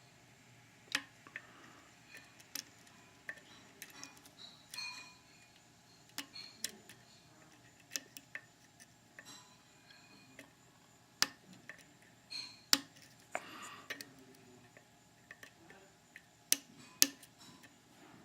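Hook pick and tension wrench working the pins of a CX5 high-security mortise cylinder, with the plug slightly rotated: irregular light metallic clicks and ticks, a few of them sharper and louder.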